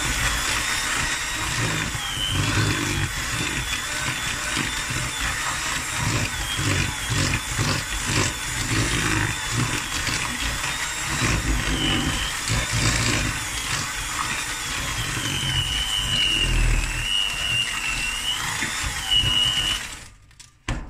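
Handheld electric mixer running, its twin beaters creaming butter and sugar in a plastic bowl: a steady high motor whine that wavers slightly, over an uneven low churning. It switches off near the end.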